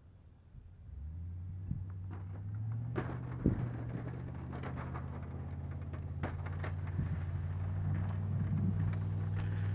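2002 Chevrolet Silverado 2500HD's V8 engine running steadily under load while plowing snow, growing louder from about a second in as the truck approaches. A few short knocks sound over it.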